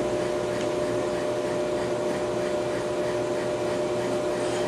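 Ammco bench brake lathe running with a steady hum as it spins a brake rotor. Near the end a light scraping starts, repeating with each turn, as the cutting bit begins touching the rotor but not yet all the way around.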